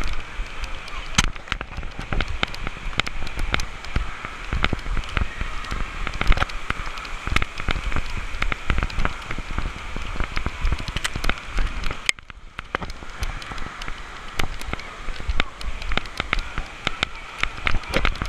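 Water spattering and splashing right against the camera, a dense patter of drops over a rushing, rumbling wash. The patter thins out briefly about twelve seconds in.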